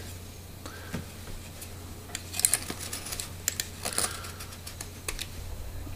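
Faint, scattered light clicks and scrapes of an ash wooden spoon being handled and worked, over a steady low hum.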